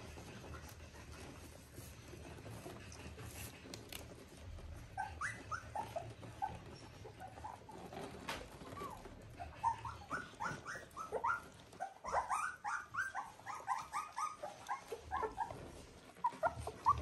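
Three-week-old Border Collie puppies whimpering and squeaking while they jostle to nurse. Short, high, rising cries start about five seconds in and come thick and overlapping from about ten seconds on.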